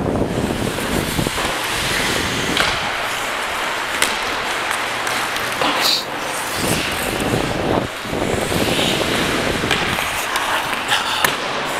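Ice skate blades scraping and carving on rink ice as a hockey player skates, with a few sharp clacks of hockey sticks or a puck, around four and six seconds in and twice close together near the end.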